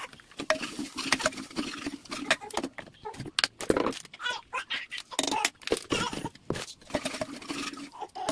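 Steel ladle stirring a thick rajma masala in an aluminium pressure cooker, clinking and scraping against the pot in many short knocks.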